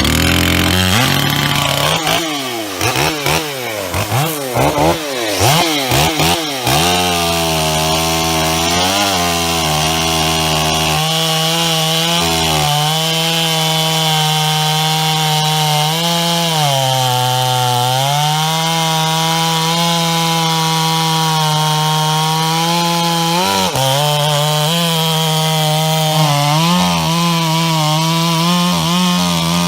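Bakerized (performance-modified) large two-stroke chainsaw revving rapidly up and down, then held at full throttle cutting wood, its pitch sagging briefly several times as the chain loads in the cut.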